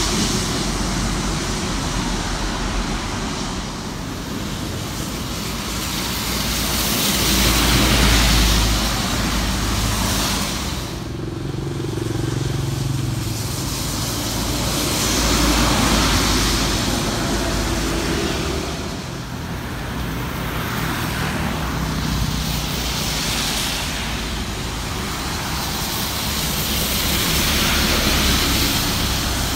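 Highway traffic of coaches and motorbikes passing one after another on a wet road. Tyre hiss on the wet surface and engine rumble swell and fade with each pass-by.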